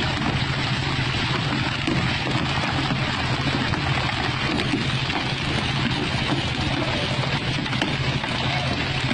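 Pole-and-line tuna fishing boat under way: its engine running with a steady low hum, over the rush of water along the hull.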